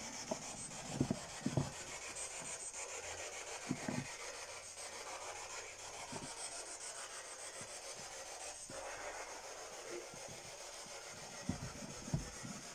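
Spirit box sweeping through radio static: a steady hiss with a fine rapid flutter, with a few soft low thumps from handling.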